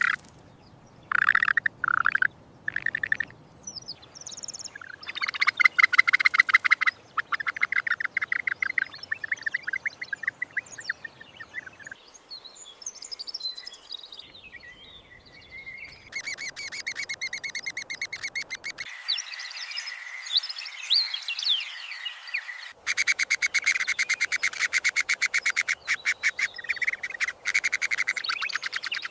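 Birds chirping and calling in rapid trills and twitters, the sound changing abruptly several times.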